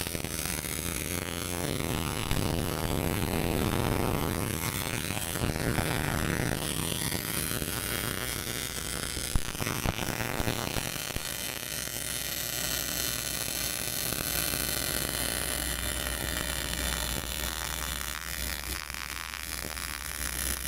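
Portable bore welder's MIG arc crackling and hissing steadily as it lays weld inside a damaged pin bore, building it up for line boring, over a low electrical hum. A single sharp click about nine seconds in.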